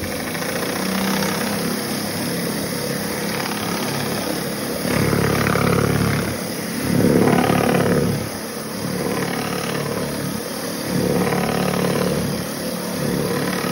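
A pressure washer's surface cleaner running over wet tile, its spinning spray bar blasting the surface with a steady rushing roar. The roar swells a few times as the cleaner is pushed along.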